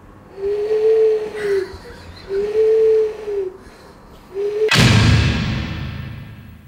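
A man imitating an owl's hoot: two long, steady hoots and a short third one. Then a loud crash-like sound effect hits about three-quarters of the way in and rings out, fading over about two seconds.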